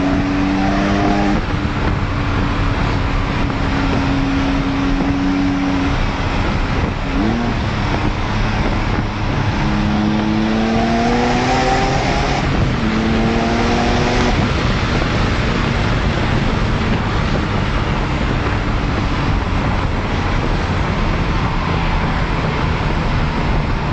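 Porsche 911 Turbo's turbocharged flat-six engine heard from inside the cabin while driving, under heavy road and wind noise. The engine note holds steady at first, then climbs in pitch twice as the car accelerates, about ten and thirteen seconds in.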